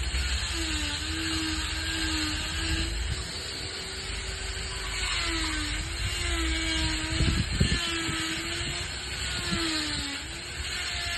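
Power tool cutting and grinding stone: a motor tone whose pitch sags and recovers several times as it bites into the stone, over a steady hiss, with a few sharp knocks about seven seconds in.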